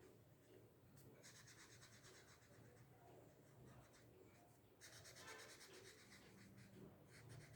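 Faint felt-tip marker scratching on paper: quick back-and-forth colouring strokes in a few short spells.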